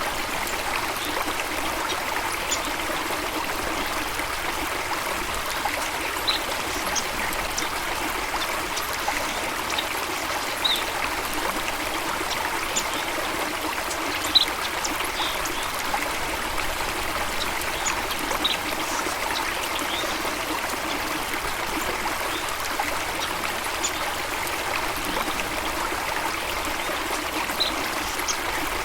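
Stream water flowing and trickling steadily, with scattered brief high-pitched blips and a single sharper tick about halfway through.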